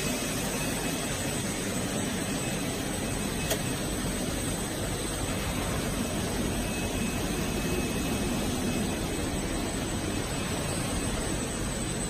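Vacuum-cleaner hose extrusion line running: steady, even machine noise with no clear rhythm.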